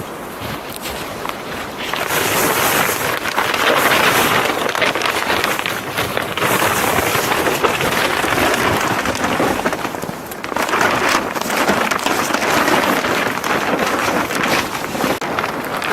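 Wind gusting across the microphone, a steady rushing that swells louder about two seconds in and again near the middle.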